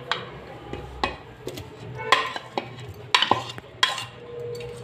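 A spoon scraping and knocking against bowls as mashed potato is scooped from one bowl into a steel bowl of ground moong dal batter, with several sharp clinks and short scrapes.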